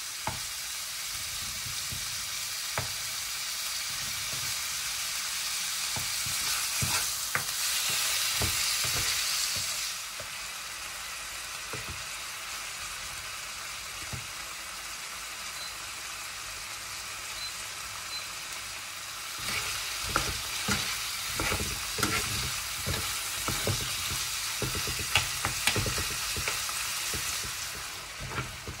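Chicken pieces with onion and turmeric sizzling in hot oil in a frying pan, being sautéed until the chicken turns white on both sides. A utensil stirs and knocks against the pan now and then. The sizzle is loudest for a few seconds about a third of the way in, and the stirring knocks come thicker in the second half.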